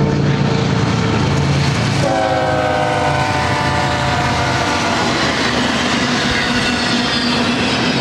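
BNSF GE ES44 diesel locomotives drone past. About two seconds in, a multi-chime air horn sounds for about three seconds, sagging slightly in pitch, over the steady rumble and clickety-clack of double-stack container cars rolling by.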